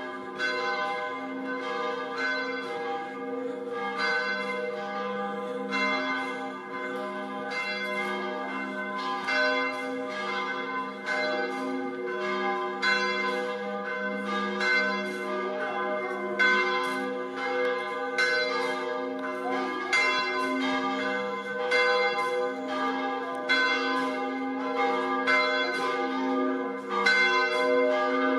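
Several church bells of the Collegiata of Saints John and Benedict ringing together in a continuous peal. Fresh strikes come about once or twice a second, and each bell's long tone overlaps the next.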